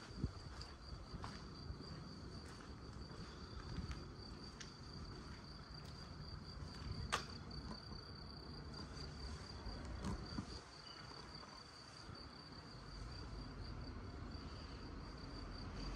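Cricket trilling, a high, steady run of rapid chirps, over a low outdoor rumble with a few light clicks and one sharper click about seven seconds in.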